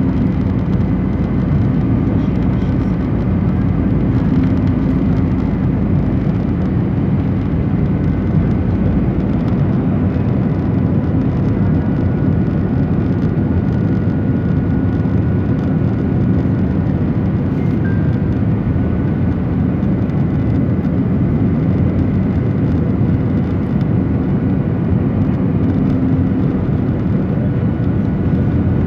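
Airbus A320 cabin noise during the approach with flaps extended: a steady rush of engines and airflow with a faint, even hum and whine.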